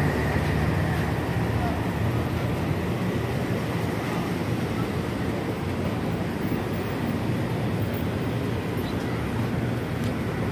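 Steady street noise: a low traffic rumble with indistinct voices.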